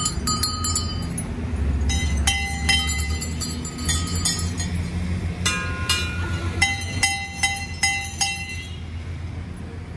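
Metal temple bells rung by hand, struck again and again in quick runs, with two or more bells of different pitch ringing on after each strike. A steady low rumble lies underneath.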